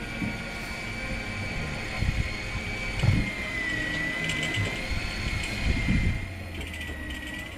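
A steady mechanical whine, wavering slightly in pitch, over a low rumble, with a few dull thumps and two short bursts of ratchet-like clicking about halfway and near the end.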